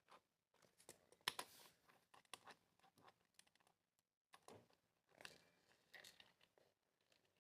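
Faint handling noises from small plastic LEGO Technic parts: scattered clicks and brief scraping rustles, with the sharpest click about a second in.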